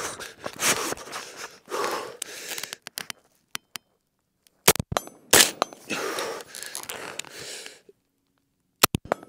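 A shooter's heavy, rapid breathing while working hard through a sprint-to-position rifle drill. Several sharp cracks or knocks come in a cluster around the middle and again near the end.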